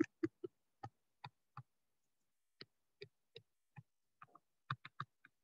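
Stylus tapping and clicking against a digital writing surface while words are handwritten: a quick, irregular run of short, sharp clicks, with a pause of about a second partway through.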